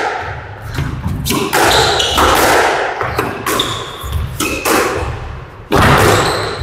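Squash rally: a squash ball struck back and forth, with sharp racket hits and ball impacts on the court walls, a string of them about a second apart.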